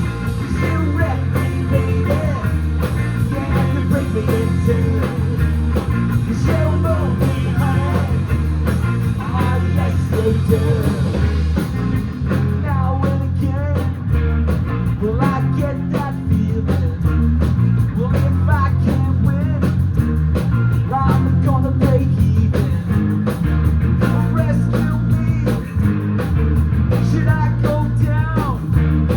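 Live rock band playing: drums and bass keep a steady beat under electric guitars, with a lead line bending in pitch over the top.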